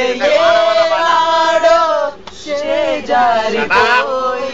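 Unaccompanied singing of a Telugu song, with long held notes that bend in pitch and a short breath about two seconds in.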